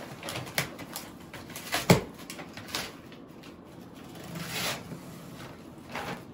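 A shipping box and its packing material being handled and pulled open: scattered knocks, clicks and rustling, with one sharp knock about two seconds in.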